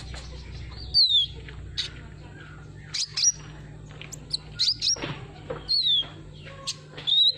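Sunbird ('kolibri ninja') song: a run of short, sharp high chirps and quick down-slurred whistles at irregular intervals, used as a lure call for caged birds, over a steady low hum.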